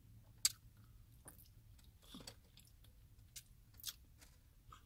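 A person chewing a mouthful of bacon-wrapped quail: a few faint, scattered mouth clicks and smacks, the clearest about half a second in.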